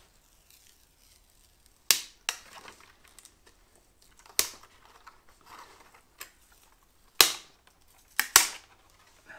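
Thin wood veneer being peeled by hand off a fibreboard cupboard door panel: about five sharp cracks as it tears away where it was glued, two of them close together near the end, with faint crackling tearing between.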